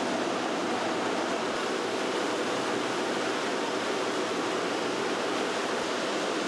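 Steady rushing din of cereal-factory processing machinery running continuously, an even noise without distinct knocks or rhythm.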